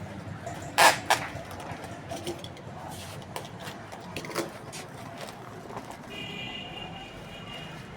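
Handling noises while an item is packed: two sharp knocks about a second in, then lighter clicks and knocks. A steady high tone sounds in the last two seconds.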